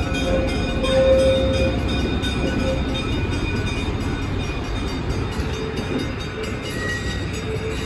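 EMD E5 diesel locomotive and its stainless-steel streamlined passenger cars passing close by, the locomotive's engine running and the wheels rumbling steadily on the rails.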